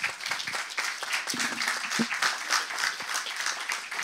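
Audience applauding.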